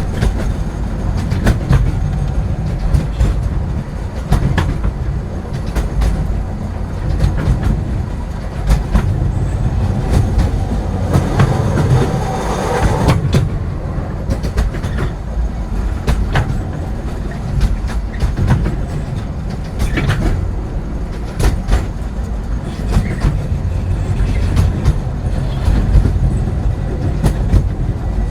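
Train rolling slowly on the rails: a deep, steady rumble with irregular clicks and clacks from the wheels over the track joints, and a brief higher squeal about halfway through.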